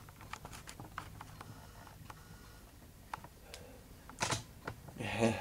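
Quiet handling noise: light, irregular clicks and taps from a hand holding and moving a hardcover book, with a louder rustle about four seconds in.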